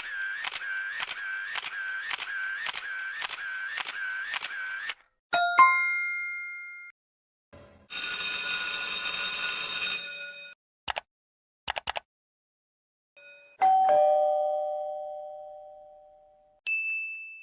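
A run of separate comic sound effects: a warbling electronic tone pulsing about eight times over five seconds, then a short chime, a harsh two-second buzz, a few quick clicks, a ding that rings and fades out slowly, and a brief high ding near the end.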